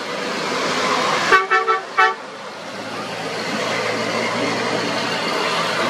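A quick run of short horn toots, about a second and a half in, over the steady running of passing Simson mopeds' two-stroke engines.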